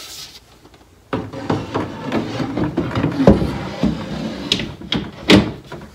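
A cabinet shelf being slid into the cabinet and onto its shelf-support clips, scraping against the cabinet sides with several knocks, the loudest about three seconds in and another a little after five seconds.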